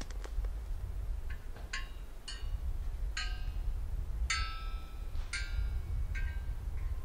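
Outdoor chime installation (a 'water-sound chime') sounding single notes one at a time, about eight clear ringing tones at uneven intervals of half a second to a second, over a steady low rumble.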